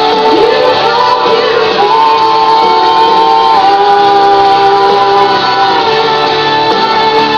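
A female vocalist singing into a microphone over instrumental backing, holding one long note for a few seconds in the middle.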